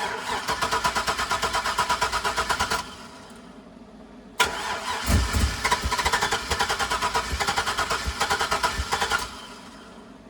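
Chevrolet Silverado's 6.0 LS V8 cranking on its starter in two tries, a rapid even chugging of about seven beats a second: about three seconds, a pause, then about five seconds more, with a few low thuds early in the second try. It does not catch and run, after the tank had run dry and been given about a gallon of fuel.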